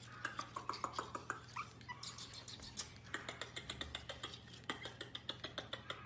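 A dog making a few short, high whines amid rapid, continuous clicking and tapping, several clicks a second.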